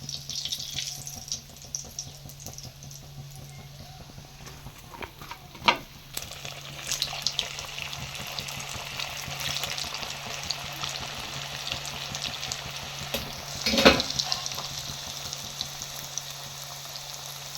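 Samosas deep-frying in hot ghee: a steady sizzle with crackling over a low hum. Two sharp knocks break in, one about six seconds in and a louder one about fourteen seconds in.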